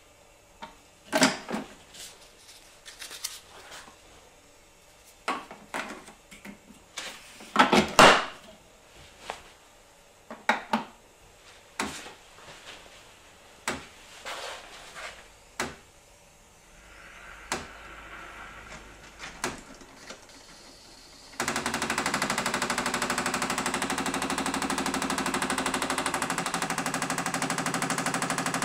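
A string of sharp plastic clicks and knocks from a Bosch Tassimo TAS4011GB coffee maker being handled, then about two-thirds of the way through its pump starts suddenly with a loud, steady rattling buzz as it begins brewing.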